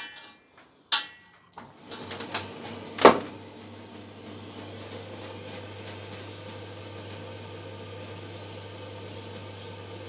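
Simpson clothes dryer being switched on: a few clicks, the loudest about three seconds in, then its motor and drum run steadily with a constant low hum.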